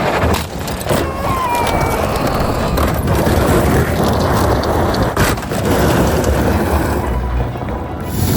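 Vehicle noise: a steady, loud rumbling with scattered knocks.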